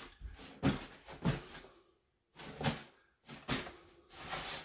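Packed OEX folding camp cot being handled in its fabric carry bag: a string of irregular rustles and knocks as the bag is lifted and held up, with a longer rustle near the end.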